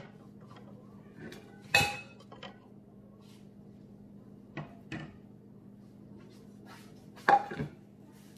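Dishes and utensils being handled and set down: two loud clinks that ring briefly, about two seconds in and near the end, with a few lighter knocks between.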